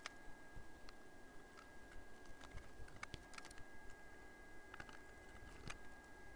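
Faint, irregular small clicks and taps of parts being handled as a circuit board is fitted back together, over a steady faint high-pitched whine.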